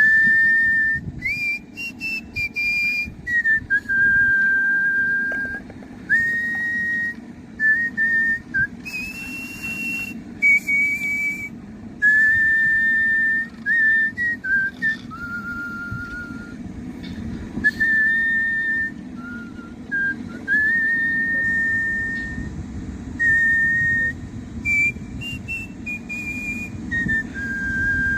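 A person whistling a melody through the lips: clear single-tone notes, some held and some joined by short slides up and down. A steady low hum sits underneath.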